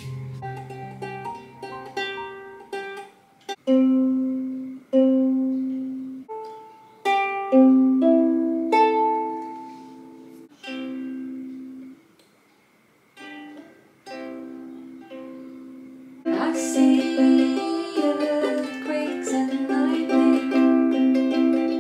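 Ukulele played by hand: single plucked notes that ring and fade, with a short pause partway through, then steady strummed chords from about two-thirds of the way in.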